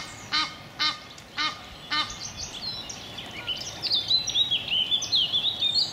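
A waterbird gives five short, duck-like calls about half a second apart; from about two seconds in, a small songbird sings a high, rapid twittering song.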